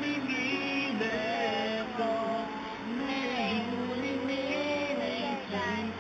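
A song: a sung melody with held and sliding notes over backing music.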